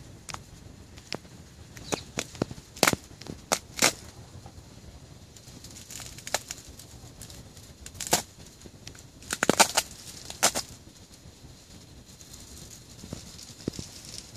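Sharp cracks and clinks of ice breaking and falling from ice-coated branches, coming irregularly in small clusters over a faint steady hiss.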